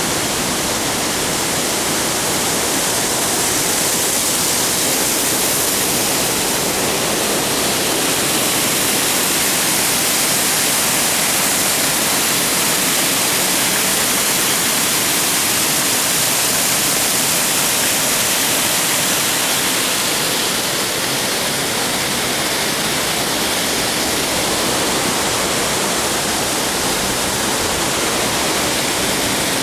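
Rushing river water, a loud, steady, even hiss without breaks.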